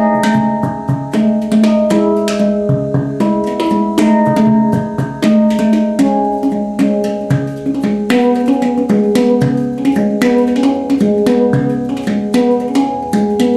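Handpan (hang) played with the hands: quick runs of struck steel notes, several a second, each ringing on under the next.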